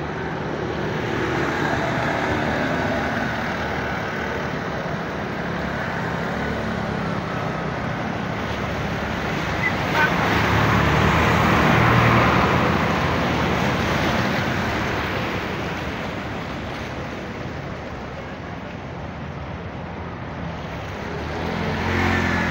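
Motor vehicles wading through a deeply flooded road: a steady rush and splash of floodwater over running engines. It grows loudest about halfway through as a dump truck ploughs past, pushing a wave of water.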